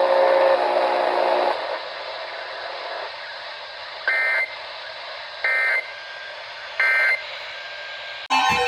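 Weather radio static hiss broken by three short, identical two-tone data bursts about a second and a half apart: the SAME digital end-of-message code that closes the severe thunderstorm warning broadcast. A loud new set of steady tones starts near the end.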